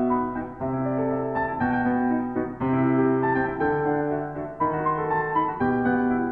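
Background piano music: slow, gentle chords, a new one struck about once a second and held.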